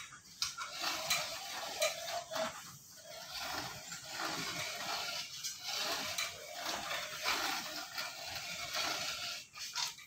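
Thin aluminium cladding sheet rattling and scraping as a ring of it is turned through a hand-cranked roller machine, with a few sharp metallic clicks.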